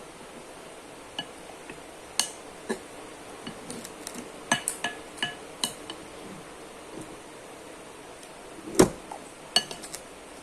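Cutlery clinking against a dish while eating: scattered light taps, some with a short ring, and one heavier knock near the end.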